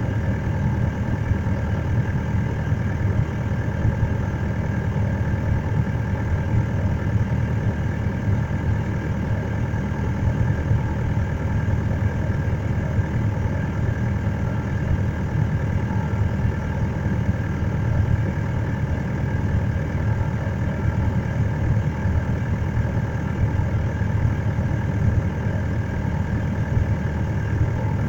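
A vehicle's engine idling steadily, heard from inside its cab.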